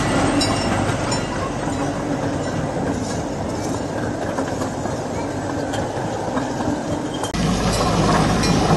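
Miniature park train with open passenger carriages rolling past close by, a steady rumble of wheels on the narrow-gauge track. About seven seconds in, the sound changes abruptly to a deeper, slightly louder rumble.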